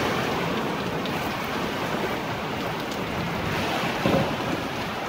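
Heavy downpour in a thunderstorm, a dense steady rush of rain with wind, swelling briefly about four seconds in.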